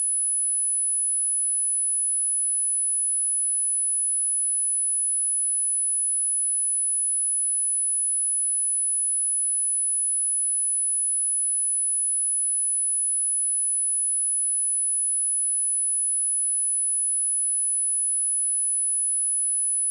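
A pure sine-wave test tone at 11001 Hz, one steady, very high-pitched tone held at constant level without a break.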